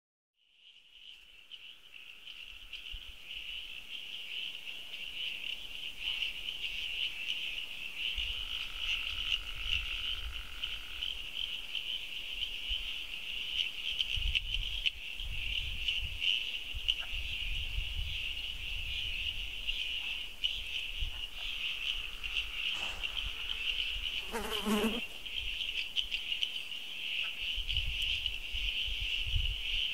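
Rainforest insect chorus: a steady high-pitched drone that fades in at the start. A lower steady tone joins about eight seconds in for a few seconds and again near the end, and a short wavering call sounds about 25 seconds in.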